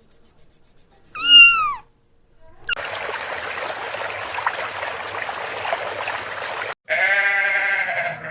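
A short cat meow, then about four seconds of steady hissing noise, then a sheep bleating with a wavering, quavering tone near the end.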